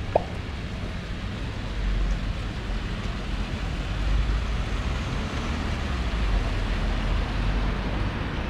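Steady open-air street ambience: a fountain's water jets splashing over a low hum of road traffic. A brief sharp click comes just after the start.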